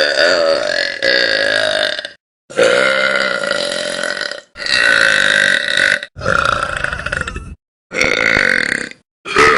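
Young women burping: about six long, drawn-out belches in a row, each lasting one to two seconds, with short breaks between them.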